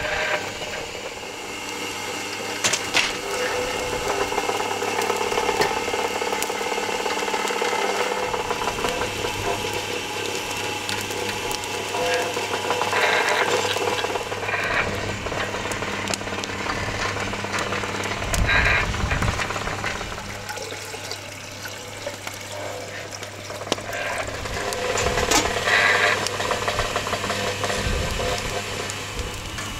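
Electric motor and chain drive of a rotisserie turning a whole bull carcass on a spit: a steady mechanical hum with occasional clicks and knocks.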